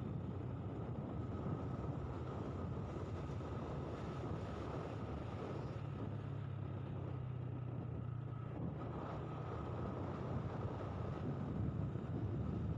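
A vehicle engine running steadily at an even speed, a low hum under a wash of wind noise.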